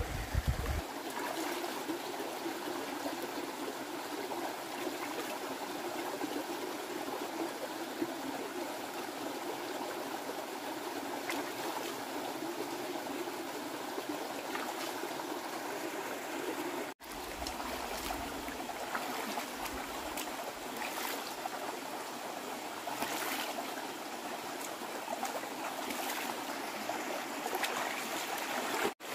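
A shallow rocky stream running steadily over stones, with occasional small splashes from hands moving in the water.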